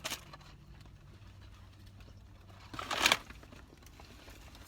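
A brief crinkle of paper, about three seconds in, over faint room tone.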